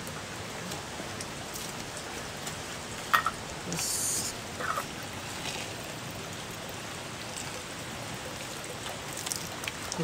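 Water running from a dragon-head spout into the stone basin of a shrine purification fountain: a steady splashing trickle. A sharp click comes about three seconds in, followed by a brief high hiss.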